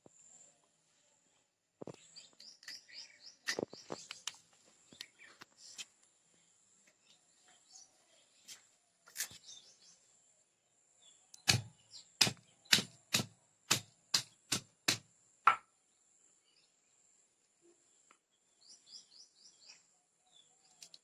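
A run of about nine sharp knocks, roughly two a second, from food being chopped or pounded by hand, with scattered lighter clicks before it. Small bird chirps come in short quick runs near the start and near the end.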